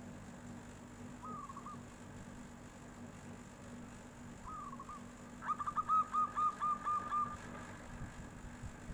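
Zebra dove (perkutut) cooing: two short warbling coos a few seconds apart, then a louder rapid run of about eight clipped cooing notes lasting about two seconds.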